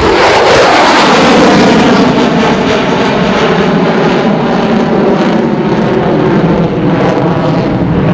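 Loud jet noise from an F-14B Tomcat's twin General Electric F110 turbofans as the fighter goes by, its tones sliding slowly down in pitch over the first few seconds.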